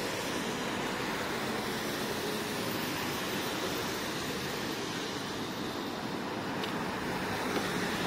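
Steady city traffic noise from cars on a snow-covered road: an even hiss with no distinct events.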